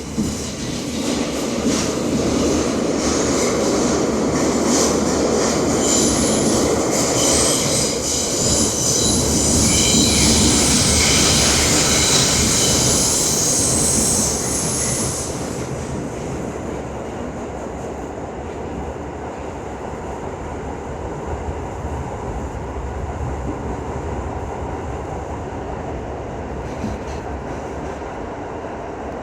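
R62 subway train running on the rails, its wheels squealing in high-pitched tones for the first half; the squeal stops about halfway through, leaving a quieter steady rumble of the moving train.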